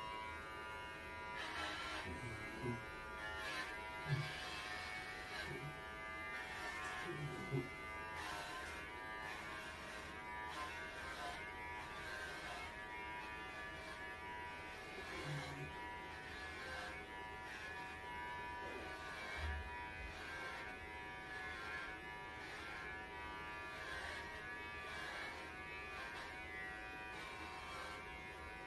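Electric pet hair clippers running as they shave a Welsh Corgi's coat down: a steady buzz whose tone shifts slightly every second or two.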